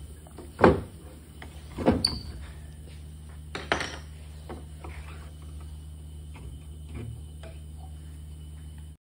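Wooden knocks as turned hardwood table legs are tapped onto the tenons of a curved rail during a dry fit: three sharp knocks in the first four seconds and lighter taps after, over a steady low hum.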